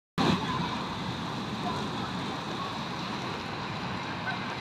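Steady outdoor background noise, starting abruptly a moment in, with a faint high steady whine running through it.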